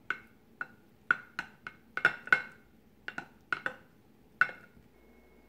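Plastic rice paddle pressing and patting sticky sweet rice down into a glass container: about a dozen short taps at an uneven pace.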